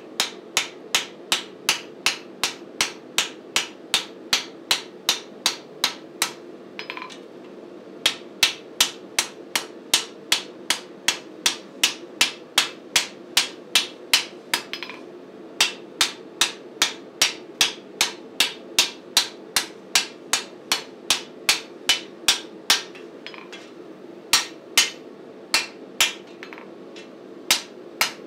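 Hand hammer striking a red-hot flat steel bar on an anvil: sharp blows at about two to three a second, in runs broken by a few short pauses. A steady low hum runs underneath.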